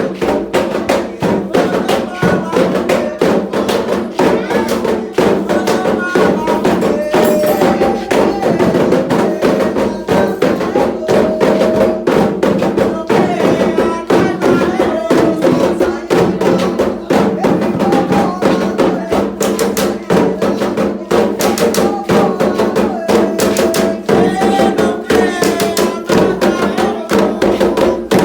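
Candomblé atabaque drums playing a steady ritual rhythm, with voices singing a chant over them.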